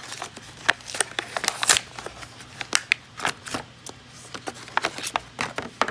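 Plastic packaging being pried open by hand: a rapid, irregular run of sharp crackles and clicks.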